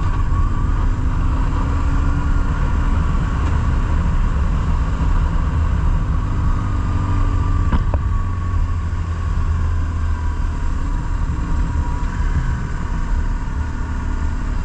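BMW R1150GS Adventure's air-cooled boxer twin engine running at a steady cruising pace, heard mostly as a constant low rumble. A single short click about eight seconds in.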